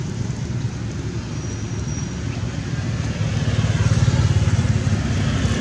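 A motor vehicle engine running, a low pulsing rumble that grows louder in the second half as it comes closer.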